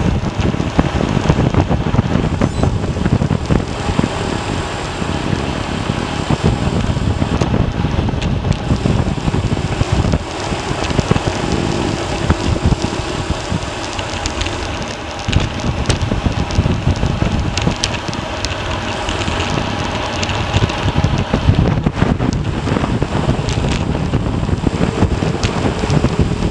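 Steady wind rushing and buffeting on the microphone of a camera carried on a moving road bike, mixed with road noise.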